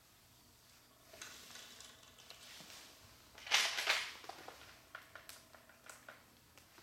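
Small hard pieces clattering: a soft rustle, then a louder rattling burst about halfway through, followed by a run of light clicks and ticks.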